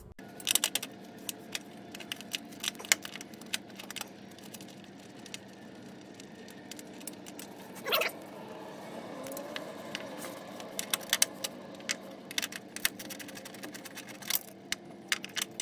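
Scattered clicks and light rattles, often in short clusters, of a hand working plastic trim and fasteners by feel behind a pickup truck's front bumper, with one louder knock about eight seconds in, over a faint steady hum.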